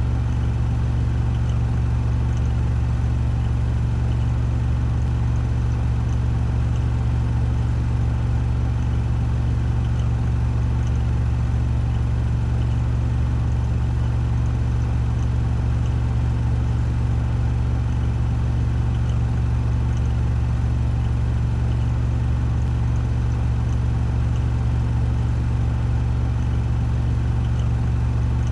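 Washing machine on a 1400 rpm spin cycle, its drum spinning at full speed with a steady low hum.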